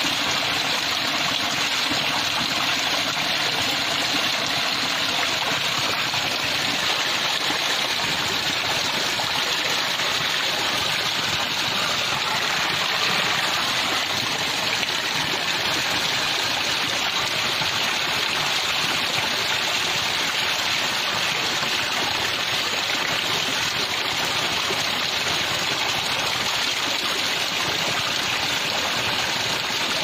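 Small waterfall splashing steadily over mossy rocks: a continuous, even rush of falling water.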